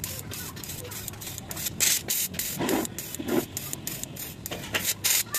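Scooter fuel injector pulsing carb cleaner through its nozzle in a rapid string of short hisses, about four a second, as it is fired from the battery during injector cleaning.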